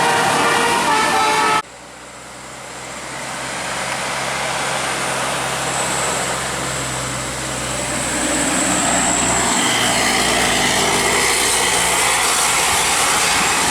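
A multi-note musical air horn (basuri/telolet type) playing a tune in quick steps, cutting off sharply about a second and a half in. Then the engine and road noise of a large passing vehicle, swelling over the next couple of seconds and holding steady.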